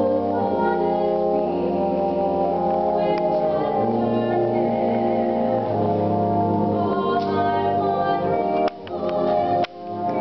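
A woman singing a solo with a brass band accompanying her in sustained chords. The sound briefly drops out twice near the end.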